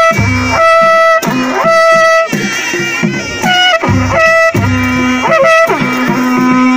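Panche baja band playing: a shrill reed instrument carries a wavering tune with long held notes over repeated drum beats.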